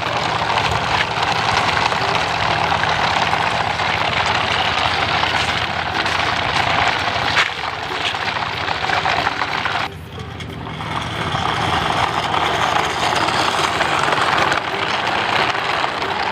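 Battery-powered toy truck running along the ground: a steady rolling, grinding noise of small motor, gears and plastic wheels, which stops briefly about ten seconds in and then starts again.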